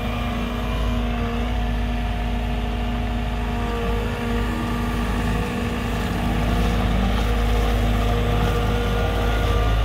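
JCB JS145W wheeled excavator's 4.8-litre four-cylinder EcoMax diesel engine running steadily as the machine moves slowly on its wheels, with a steady whine over the engine rumble. It grows a little louder near the end.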